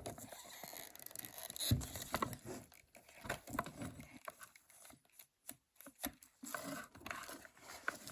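Plastic parts of an RC buggy's front axle assembly being handled and pried at by hand: irregular small clicks, taps and scraping, with a louder knock about two seconds in.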